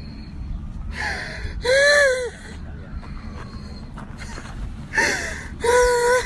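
A man crying out in pain with loud, drawn-out sobbing wails, two about a second in and two more near the end, over a low rumble.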